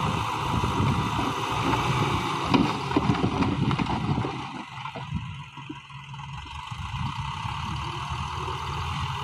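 Heavy diesel earthmoving machinery running with a low rumble and scattered knocks; about halfway through the higher part of the engine noise drops away and the sound gets quieter.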